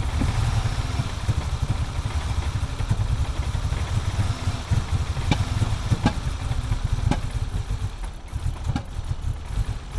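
BMW E30 325is straight-six running rough while cold, its steady idle broken by irregular sharp pops from misfiring.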